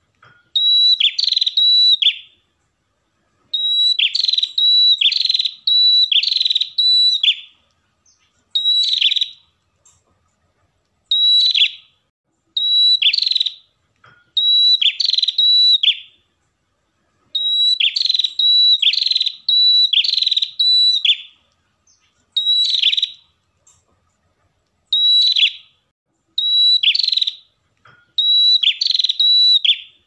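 Red-headed prenjak (a prinia) singing: loud, shrill, high repeated phrases delivered in quick bursts of two to four strokes, with short pauses between bursts.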